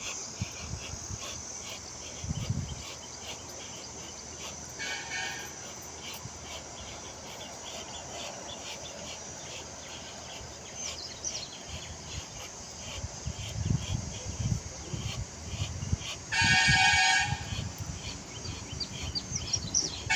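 Crickets or other insects chirping in a steady, rapid pulse, with a few bird chirps. A short horn toot sounds about 5 s in, and a louder one of under a second about 16 s in.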